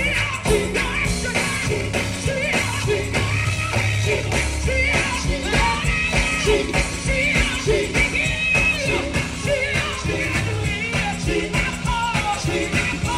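A vocal group singing live into microphones over amplified backing music with a bass line and a steady drum beat, heard through outdoor PA speakers.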